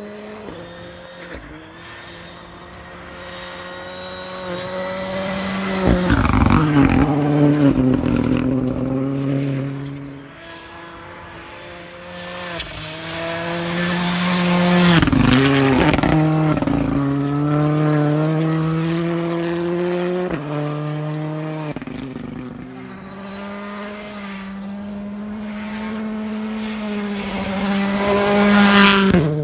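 Modern rally car engines at full stage pace, the engine note climbing and dropping through gear changes. It swells loud as cars pass close, about six seconds in, around fifteen seconds and just before the end, with short crackles from the exhaust around the first two passes.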